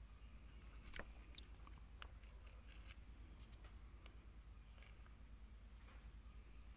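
Near silence: faint room tone with a steady high-pitched hiss and a low hum, broken by a few soft clicks about one and two seconds in.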